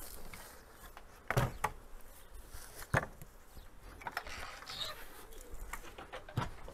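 Three short sharp knocks spread through, over faint rustling and shuffling, as people and calves move about a straw-bedded wooden calf pen.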